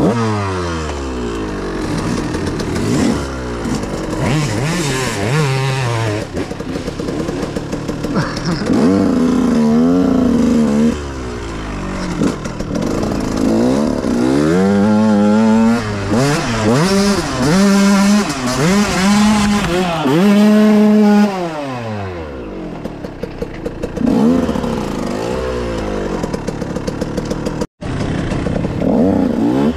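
Dirt bike engine being ridden hard, its pitch climbing and dropping again and again as the throttle is worked and gears change. The sound cuts out for a moment near the end.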